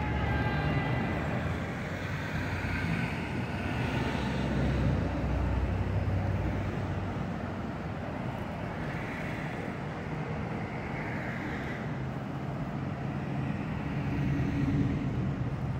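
New York subway R142 train on an elevated steel structure, a steady low rumble with a brief high whine in the first second.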